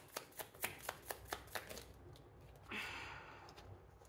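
A deck of tarot cards being shuffled by hand: a quick run of soft card clacks, about five a second, stopping after about two seconds. A brief soft rustle of cards follows about three seconds in.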